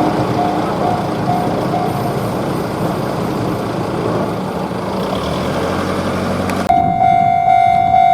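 Railroad crossing bell dinging about twice a second, fading about two seconds in under the rumble of a passing train. Near the end the sound cuts abruptly to a steady held tone.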